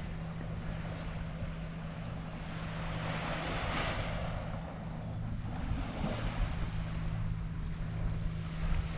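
Seaside ambience: wind on the microphone and small waves washing onto a sandy beach, with a steady low hum underneath. The wash of noise swells about three to four seconds in.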